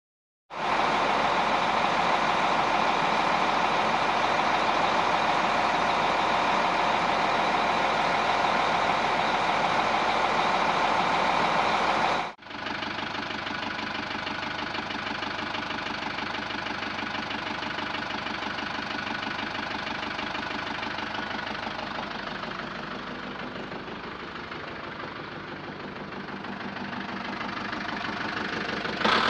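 Recorded vehicle engine sound effect running steadily. It starts half a second in, cuts off abruptly about twelve seconds in, and is replaced at once by a second, quieter steady engine recording.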